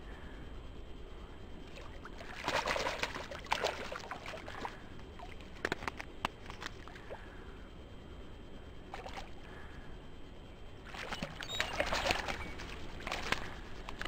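Hooked trout thrashing and splashing at the water's surface in two bouts, about two and a half seconds in and again about eleven seconds in, while it is played on a fly rod and brought to the net.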